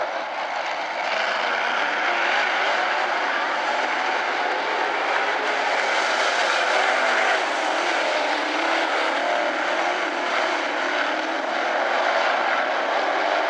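A pack of dirt-track modified race cars racing under power, their engines blending into one continuous, steady drone that swells slightly as the cars come nearer.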